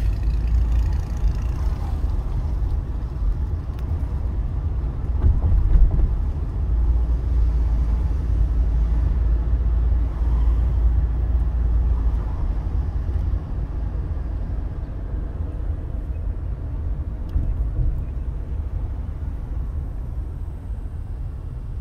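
Steady low rumble of a car being driven, road and engine noise, easing off somewhat over the last several seconds.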